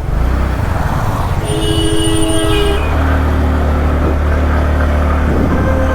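A motor vehicle running on the road with a steady low rumble, and a vehicle horn sounding once for a little over a second, about one and a half seconds in.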